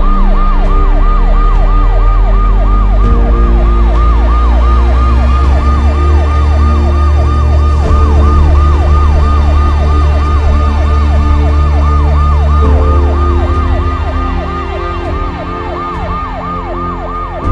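Emergency-vehicle siren in fast yelp mode, its pitch sweeping up and down about three times a second, with background music underneath. The siren starts and stops abruptly.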